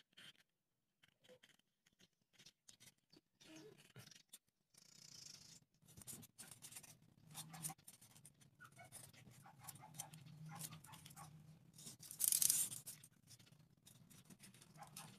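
Small clicks, taps and scrapes of hands handling popsicle sticks, a bamboo toothpick and a craft knife on a wooden board, with a louder short scrape about twelve seconds in. A faint low hum runs underneath from about four seconds in.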